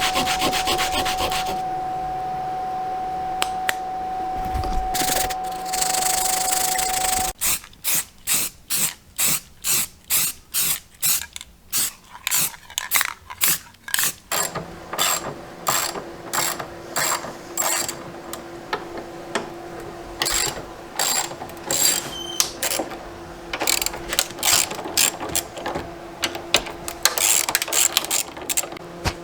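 Hand ratchet wrench clicking in repeated short strokes as bolts are turned. A steady hum runs for the first seven seconds or so, then the clicking comes in quick, even strokes about twice a second, then more unevenly over a fainter hum.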